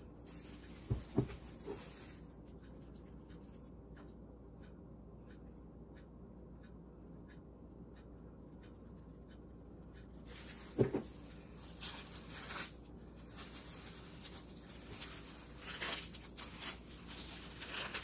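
Handling noise as raw steaks are seasoned: a plastic food-prep glove rustling and rubbing against paper and meat. There are a couple of soft knocks about a second in, a quieter stretch, then more rustling in the second half.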